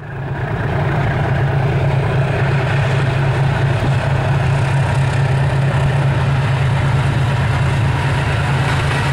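Multiple South African Railways 35 Class GE diesel-electric locomotives running with a steady, deep engine drone as the train approaches, fading in over the first second.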